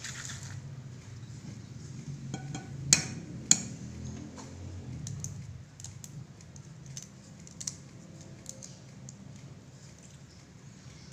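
Egg tapped sharply twice against the rim of a ceramic plate to crack its shell, followed by light, scattered clicks of the shell being broken apart by hand. A steady low hum runs underneath.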